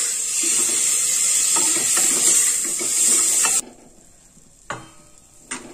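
Onion-tomato masala sizzling as it fries in an aluminium pressure cooker while a wooden spatula stirs and scrapes the pot. The sizzle stops abruptly about three and a half seconds in, and two faint knocks follow.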